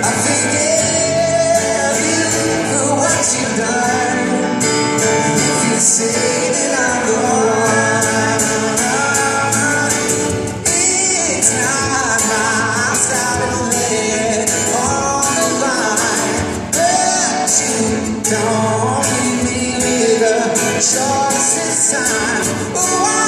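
Live band performance of a pop-rock song, with a sung vocal line running over the band throughout.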